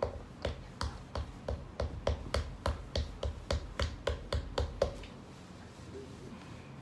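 A knife being stabbed repeatedly into a hard pumpkin rind: a quick run of short knocks, about three a second, that stops about five seconds in.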